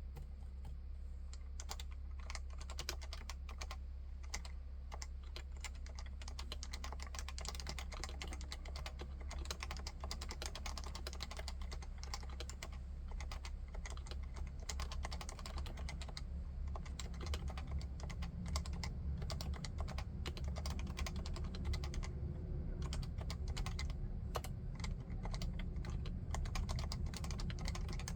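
Continuous typing on a Leopold FC660C keyboard with Topre electro-capacitive switches: a fast, steady run of keystrokes starting about a second in.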